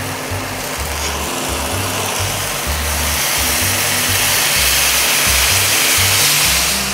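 Red wine sauce with stock just poured in, sizzling and bubbling hard in a hot steel frying pan; the hiss builds over the first few seconds and then holds steady. Background music with a stepping bass line plays underneath.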